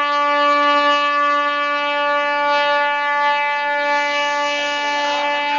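WDM-7 diesel locomotive's air horn sounding one long steady blast as the train pulls away from the station. A rushing noise rises briefly about four seconds in.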